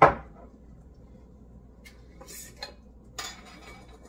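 Metal kitchenware clanking on the stove: one loud clank with a short ring right at the start, then a few faint clinks and a brief rustle near the end.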